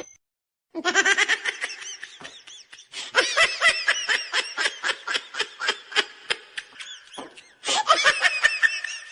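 High-pitched laughter in quick repeated bursts, in two long fits with a short break between them.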